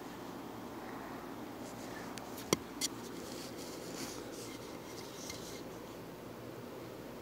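Phone handling noise: rubbing and scraping against the microphone as the phone is moved, with two sharp clicks about two and a half seconds in, a fraction of a second apart.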